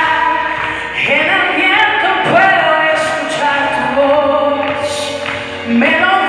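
A song playing: a lead voice singing long, held notes that glide between pitches, over accompaniment, with other voices layered in.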